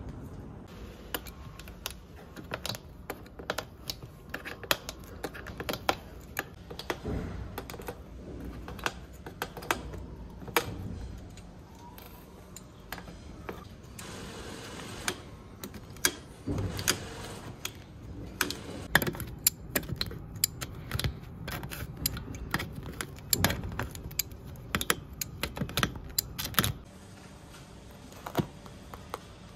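Hand tools stripping old upholstery off a sofa frame: rapid, irregular sharp clicks and snaps as a staple lifter and pliers pry staples out of the wooden frame, with a short rasping stretch about halfway through.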